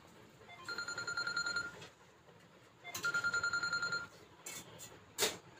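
An electronic beeper sounds twice, each time a fast-pulsing high tone about a second long, the two about two seconds apart. A short knock follows near the end.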